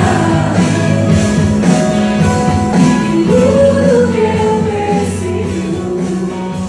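Gospel worship song performed live: a woman singing into a microphone over instrumental backing with a drum beat.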